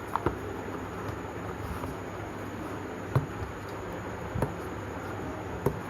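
A few sharp, isolated clicks and taps from a power bank and its packaging being handled, over a steady background hiss. The loudest clicks come about three seconds in and near the end.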